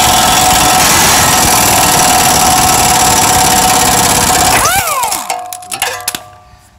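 Plastic-bodied Ingersoll Rand air impact wrench running steadily for about four and a half seconds, driving down the screw of a ball joint press to push a new ball joint into the steering knuckle. Then the trigger is let go and the air motor whines down, followed by a few light clicks.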